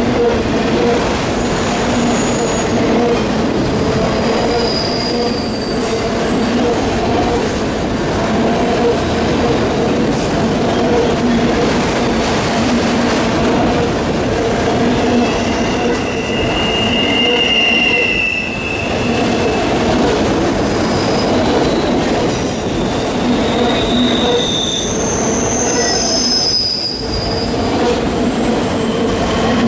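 Freight train of loaded autorack cars passing at speed close by: the steady, loud rumble and rattle of steel wheels on the rails. Short high-pitched wheel squeals come and go, most clearly about halfway through and again a few seconds before the end.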